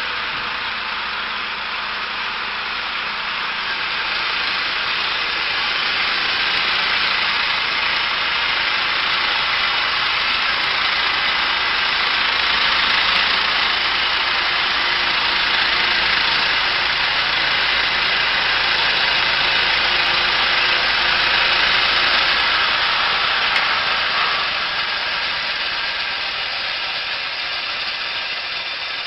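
A large engine-driven machine running steadily with a dense rushing noise, swelling a little through the middle and easing near the end.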